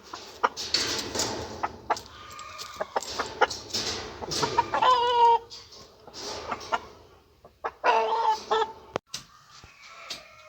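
Chickens clucking and squawking, with the loudest calls about five seconds in and again near eight seconds.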